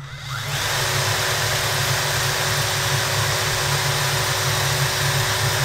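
Cordless drill on its high speed setting spinning a brushless RC motor's shaft, driving the unloaded motor as a generator: a whine rising over the first half second as it spins up, then running steadily.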